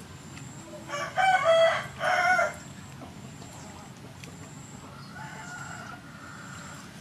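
A rooster crowing loudly in two parts, from about a second in to about two and a half seconds, then a fainter call around five seconds in.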